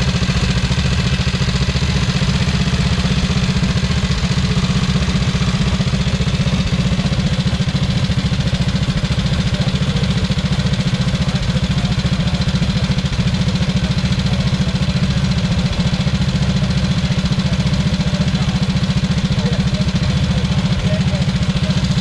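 Vintage 1920s-era BSA single-cylinder motorcycle engine idling steadily, its rapid even firing beat loud and unchanging.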